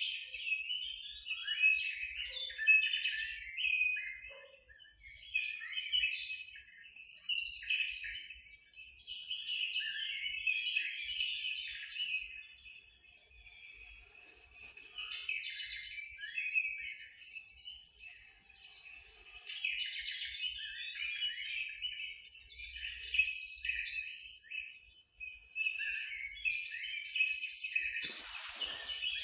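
A chorus of birds chirping and twittering, many short high calls overlapping in bouts with brief lulls between them. There is a short knock near the end.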